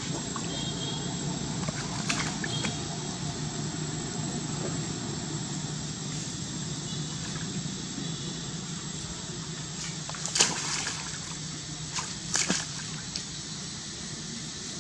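Shallow water sloshing and splashing as monkeys wade and drink at the water's edge, over a steady outdoor background hum, with a few short, sharper splashes about ten and twelve seconds in.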